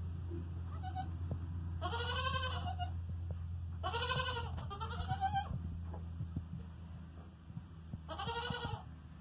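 Goat bleating four times, short wavering calls under a second each, three close together and the last a few seconds later, over a low steady hum.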